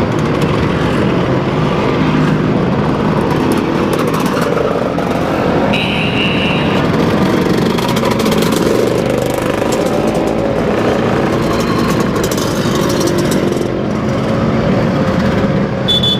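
Busy road traffic: motor vehicles passing continuously, engines running and accelerating, with a short high tone about six seconds in.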